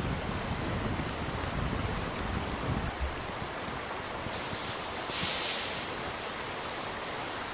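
Raw ribeye steak laid on a hot cast-iron grill grate over a campfire, sizzling: a sudden hiss starts about four seconds in, loudest for the first second or so, then settles to a steady sizzle.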